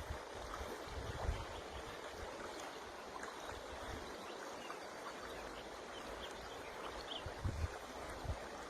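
River water rushing steadily, with irregular low gusts of wind buffeting the microphone.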